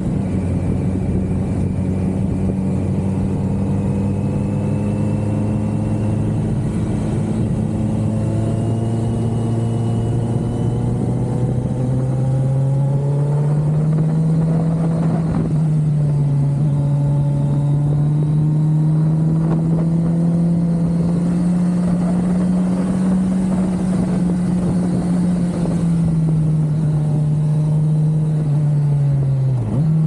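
Kawasaki Z900's inline-four engine running under way. It holds steady revs at first, climbs in pitch from about twelve seconds in, and near the end drops sharply for a moment before picking up again.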